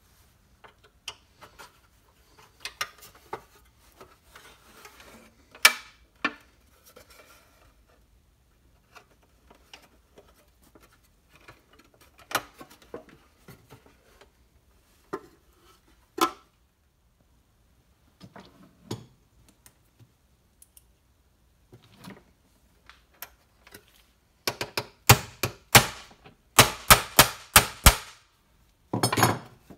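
Scattered clicks and knocks of the pressed-steel parts of a Mighty Tonka dump truck being handled and fitted. Near the end comes a quick run of about a dozen sharp hammer taps, the loudest sounds, driving a steel pin into the truck's steel chassis.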